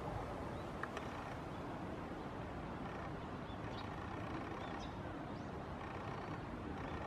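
Steady low outdoor background rumble, with a few faint, short, high chirps around the middle and a couple of faint clicks about a second in.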